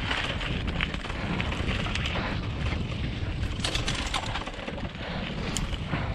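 Mountain bike rolling along a sandy forest trail: tyres crackling over sand and twigs, with scattered small clicks and rattles from the bike. A steady rumble of wind on the microphone runs underneath.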